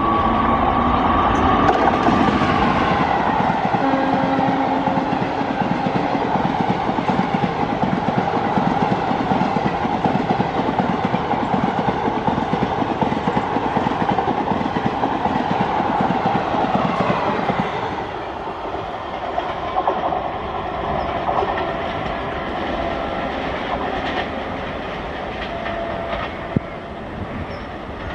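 An Indian Railways WAP-4 electric locomotive hauling an express train past at speed. A steady horn note sounds for the first two seconds, then wheels rumble and clatter over the rail joints as the coaches rush by. The sound drops off at about 18 s as the end of the train recedes.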